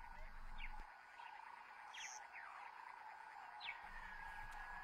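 Shiny burrowing scorpion stridulating: a faint, steady rasping hiss, its warning to an intruder to keep away. A few short, falling chirps sound faintly over it.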